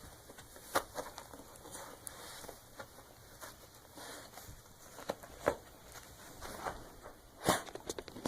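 A dog chewing and tearing at a stuffed plush toy: irregular rustling and crinkling with sharper snaps, loudest about a second in, midway and near the end.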